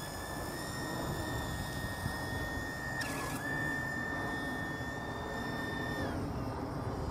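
RC hydrofoil's electric motor and propeller whining at a steady high pitch, then dropping away about six seconds in. A brief noise about three seconds in sits over a low haze of wind and water.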